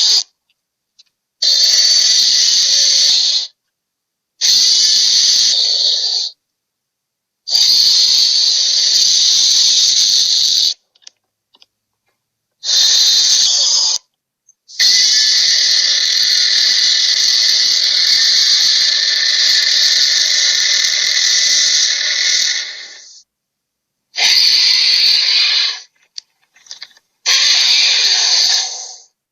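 Monster sound effects: a run of shrill, high screeches, most about two seconds long with dead silence between them, one drawn out for about eight seconds.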